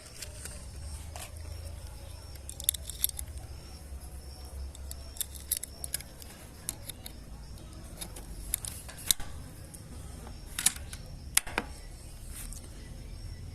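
Scattered sharp metallic clicks and clacks, single and in pairs, from handling a CBC 8122 bolt-action .22 rifle and its scope, over a steady low rumble.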